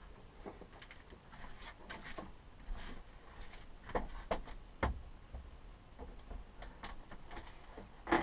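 Scattered light clicks and knocks of hand work on a Norcold RV refrigerator's door hinge as the top hinge pin is unscrewed and the door handled, with sharper knocks about four and five seconds in and the loudest one near the end.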